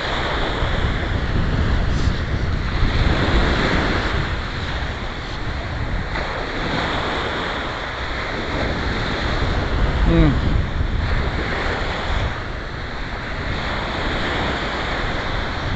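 Ocean surf breaking and washing up the beach, surging and fading every few seconds, with wind buffeting the microphone.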